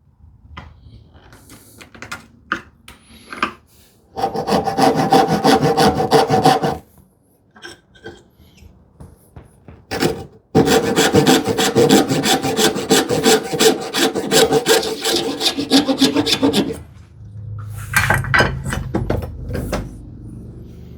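Hand saw cutting through wood in two runs of quick, steady strokes, the second longer, with a few knocks between. The saw is taking off most of the waste from a small filler piece.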